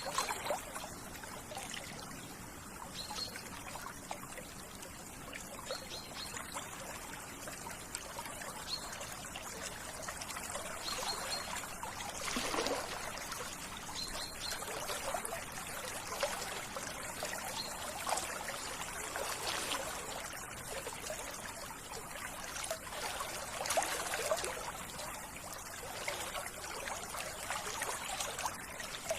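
A small stream trickling and splashing over stones, running steadily with irregular louder splashes.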